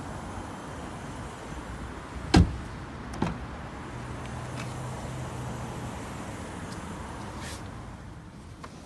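A Nissan Micra's car door shut with one loud thud about two and a half seconds in, followed by a lighter knock under a second later, over a steady background hiss.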